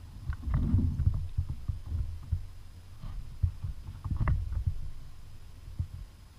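Dull thumps and knocks against a kayak hull, bunched in two clusters: one about half a second to a second in, another around four seconds in.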